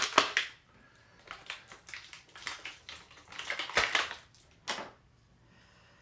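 Clear plastic blister tray crackling in scattered bursts as an action figure is pried out of it, loudest about four seconds in.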